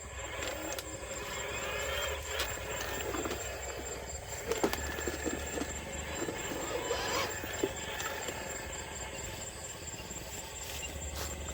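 Radio-controlled model truck running: a whining electric motor and gearbox that rises and falls in pitch, with scattered clicks and knocks over a steady low hum.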